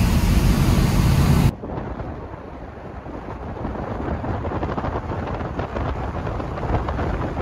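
Wind buffeting the phone's microphone in a moving car at an open sunroof, a loud rumble that cuts off abruptly about one and a half seconds in. Quieter, steady wind and road noise of the moving car follow.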